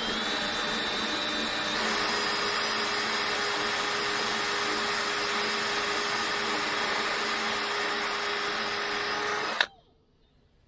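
Cordless drill boring through the steel wall of a smoker's cooking chamber, its motor whine rising over the first couple of seconds and then holding steady. It stops abruptly about a second before the end.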